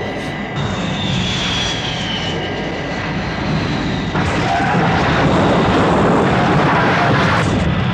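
Jet aircraft engine sound effect of Thunderbird 2 on its landing approach, with a whistle that falls in pitch early on. From about four seconds in a louder rushing roar follows as the damaged craft comes down on the runway.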